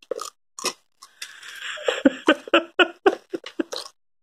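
A toddler biting and chewing raw bitter gourd. There are two short sounds in the first second, then a hiss with a quick run of short sounds, about four a second, through most of the rest.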